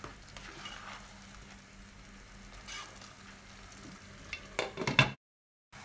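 A spatula stirring thick spinach and chicken mince in a pot, with a soft sizzle as it cooks down. Near the end a glass lid clatters onto the pot, then the sound cuts off briefly.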